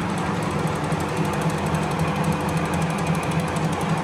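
Machine-shop machinery running steadily: a constant hum with a fast, even rattle over it.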